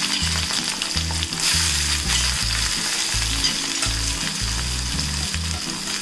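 Freshly added onion and green chillies sizzling steadily in hot oil in a pan, stirred as they sauté.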